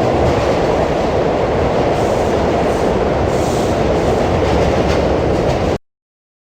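Train running along the rails: a loud, steady rumble of wheels and cars, with a brief hiss about three and a half seconds in. It stops suddenly near the end.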